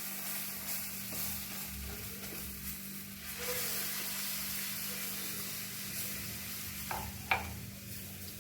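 Gram flour and milk sizzling in a hot pan while being stirred steadily to keep lumps from forming, over a steady low hum. Two short squeaks come about seven seconds in.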